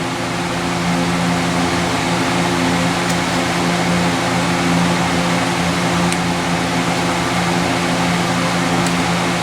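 A steady machine hum with a rushing noise behind it, like a running fan, and a faint tick about every three seconds.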